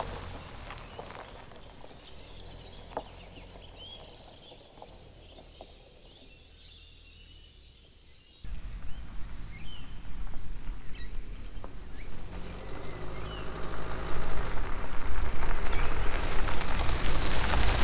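Small birds chirping over a quiet outdoor background. About eight seconds in, the sound cuts abruptly to a much louder low rumble and rushing noise that grows louder still near the end, with bird chirps still audible.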